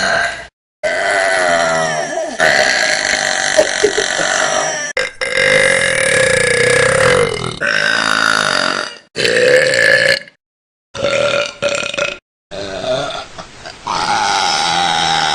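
A run of loud, long, drawn-out burps from girls, one after another, some lasting two to three seconds with a steady pitch. Several are split by sudden short gaps of dead silence.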